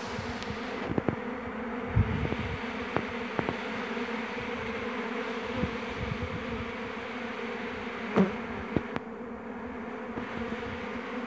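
A swarm of honeybees at an apiary hive buzzing in a steady hum. A few short louder buzzes and clicks rise above it, the loudest about eight seconds in.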